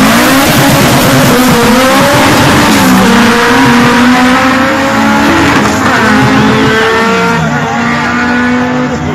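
Two hatchback drag cars, one a Peugeot 106 GTI with a built four-cylinder engine, launch from the line at full throttle and run hard. The engine notes climb through each gear and drop back at each of several upshifts, then fade slowly as the cars draw away down the strip.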